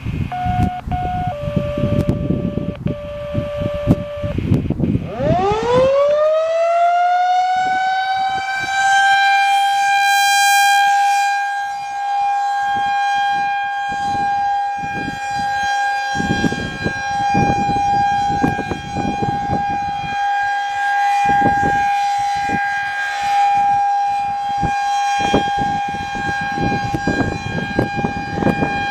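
Federal Signal 2001-SRN rotating electromechanical tornado siren winding up about five seconds in, its pitch climbing steeply and then settling into a steady high wail for a test, the sound swelling and fading as the siren head turns. Wind buffets the microphone throughout, and a short two-step tone sounds in the first few seconds.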